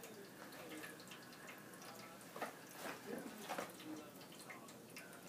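Paper towels rustling and tearing in short bursts, loudest about two and a half to three and a half seconds in, as a cat shreds them, over the faint steady trickle of a pet water fountain.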